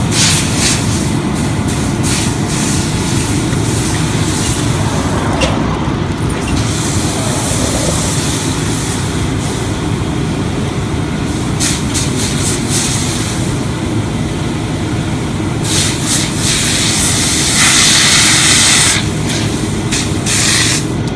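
Fire hose nozzle spraying water from a charged line, over a steady low rumble. The spray hiss swells and drops several times and is loudest for a couple of seconds about 17 seconds in.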